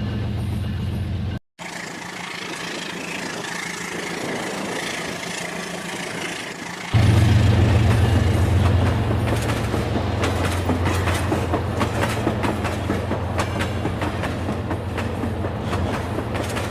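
Rail King toy train running on its track: a small motor's hum with many fine clicks from the wheels on the track. The sound cuts off abruptly about a second and a half in. About seven seconds in it jumps louder, with a steady low hum under the clicking.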